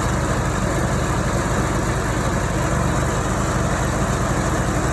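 Vermeer 206 stump grinder's engine running steadily.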